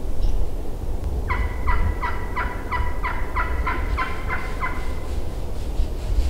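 Wild turkey calling: a series of about ten short, evenly spaced notes, roughly three a second, lasting about three and a half seconds.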